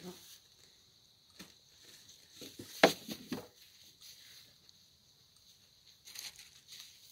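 Scattered soft rustling and handling noises, with one sharp click about three seconds in followed by a few softer knocks.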